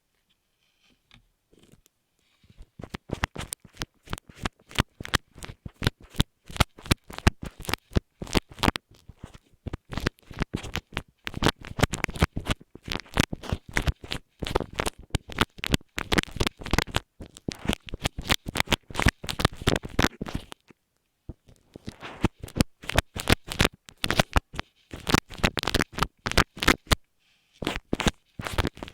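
Fast, irregular close-up scratching and rubbing strokes picked up directly on an earphone microphone, in quick runs with two brief pauses.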